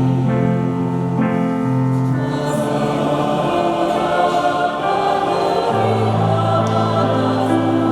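Church choir singing a hymn in long held chords, the harmony shifting about a second in and again near six seconds in.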